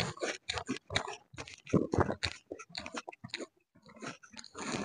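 Close-up mouth sounds of someone chewing a soft steamed chicken taipo bun: an irregular run of wet smacks and clicks, several a second, with a short pause about three and a half seconds in.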